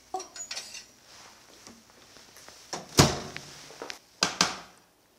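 Knocks and clatter of a glass baking dish of roasted cabbage being handled and set down on a glass cooktop. The loudest knock comes about three seconds in, with two more just after four seconds.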